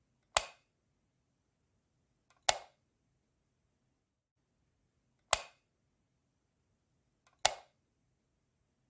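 Light switch clicked four times, off and on in turn. Each is a single sharp click, two to three seconds apart, and the second and fourth have a faint tick just before them.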